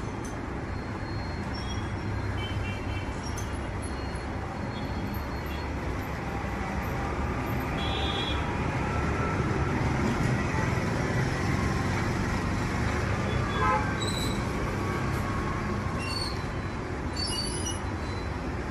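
Steady background rumble of road traffic, with a few light metallic clinks from small engine parts being handled.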